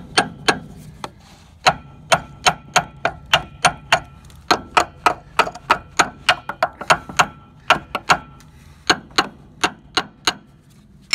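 Steady hammer blows ringing on the steel axle-shaft flange of a grain truck's rear axle, about three a second, with a short pause about a second in and another near the end. The blows are knocking the flange and its washers loose so the axle shaft can be pulled out.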